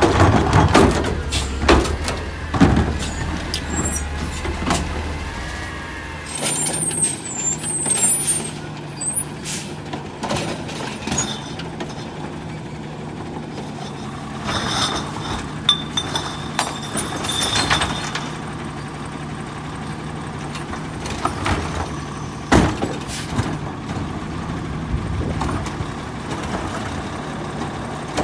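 Natural-gas automated side-loader garbage truck working a curbside pickup. The engine runs steadily while the hydraulic arm grabs, lifts and tips a wheeled trash cart, with scattered knocks and clanks of cart and arm and a hiss of air about seven seconds in.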